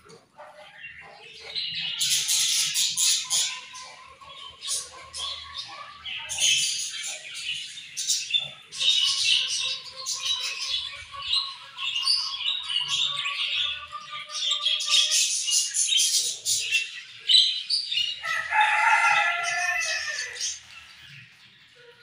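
A flock of budgerigars chirping and warbling together, many calls overlapping, with wing flutters as birds fly about. The chatter starts about two seconds in, and a harsher, lower call comes near the end.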